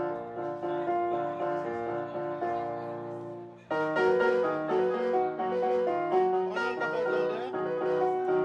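Electronic keyboard played live: a melody of held notes over a lower repeating accompaniment. It fades into a brief break about three and a half seconds in, then starts again louder.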